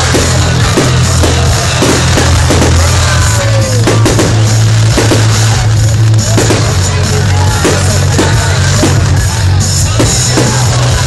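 Loud music with a heavy drum beat, with fireworks bursting and crackling through it.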